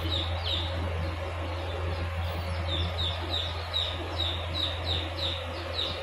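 A flock of Japanese Shamo chicks, about 10 to 15 days old, peeping: a string of short, high, falling chirps, several a second. A steady low hum runs underneath.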